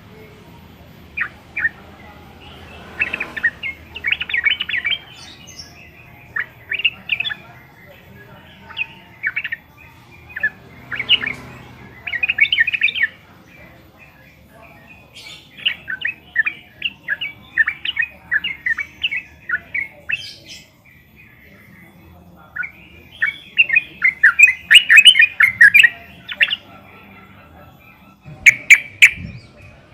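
Yellow-vented bulbuls calling: repeated bursts of quick, chattering notes, with a short lull about two-thirds of the way through and a dense, loud flurry soon after.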